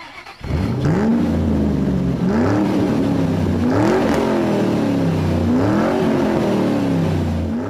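Volkswagen car's motor repeatedly spinning up and winding down, about four times: each time the pitch rises quickly, holds briefly, then falls away.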